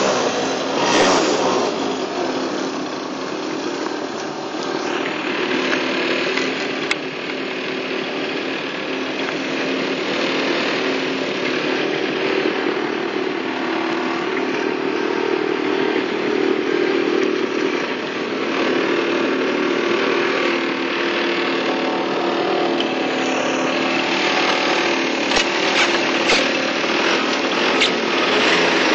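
Honda Gyro Up scooter's 50 cc two-stroke single-cylinder engine idling steadily, with a few light knocks near the end.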